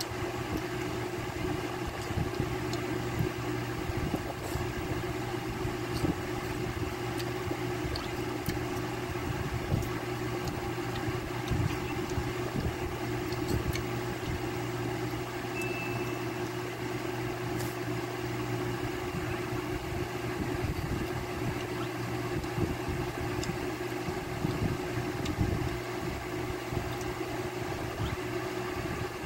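Steady low hum of an electric stand fan motor running, unchanging throughout, with a few faint clicks.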